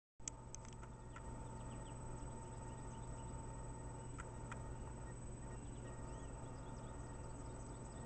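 Pileated woodpecker pecking at the base of a tree stump: a few faint, irregular taps, several in the first second and two more about four seconds in, over a steady low hum, with faint high chirps in the background.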